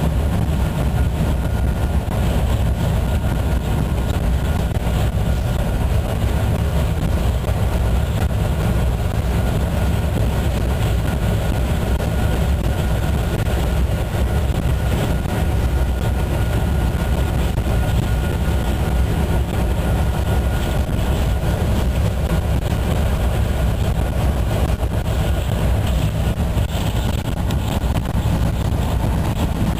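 DXC-class diesel-electric locomotive under way, heard from the cab: a steady, loud low rumble of the diesel engine and the wheels running on the rails.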